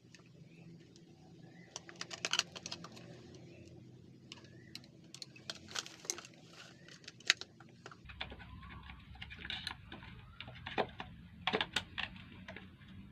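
Scattered sharp clicks and taps of small plastic and metal parts being handled while a Panasonic blender is reassembled after a carbon-brush check, over a faint hum.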